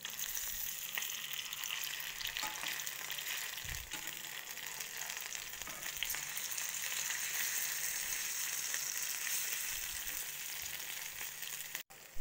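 Murrel (korameenu) steaks in a cornflour and rice-flour coating sizzling steadily as they shallow-fry in oil in a pan, with a metal spatula turning the pieces now and then.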